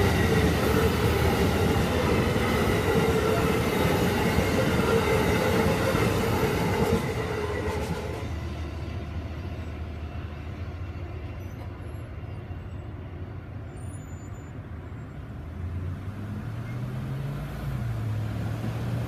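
Amtrak passenger train rolling by on the rails, wheel-on-rail noise with steady squealing tones, dropping off sharply about seven seconds in and fading as the train moves away. A low wavering hum comes up near the end.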